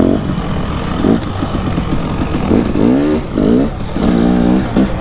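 Dirt bike engine revving up and down with the throttle while being ridden, in several short rises and falls in pitch, with a longer held rev near the end.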